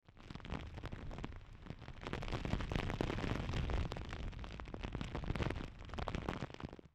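Hurricane wind buffeting the microphone, a heavy rumbling roar that surges in gusts, with rain crackling and spattering throughout.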